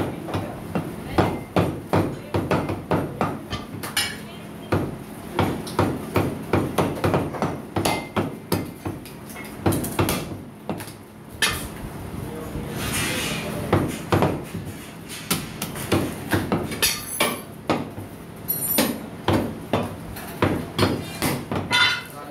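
Butcher's cleaver chopping mutton on a chopping block: quick repeated chops, a few a second, easing off briefly a little before halfway and then carrying on.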